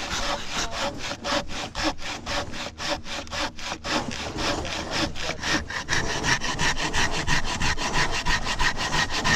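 Crosscut saw cutting through a downed log, rasping in quick, even strokes that come faster after about six seconds, when a faint steady ringing tone joins them.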